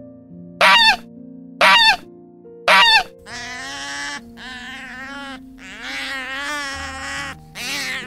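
Canada goose honking three times, about a second apart. From about three seconds in, a sea otter calls in long, wavering squeals. Background music runs under both.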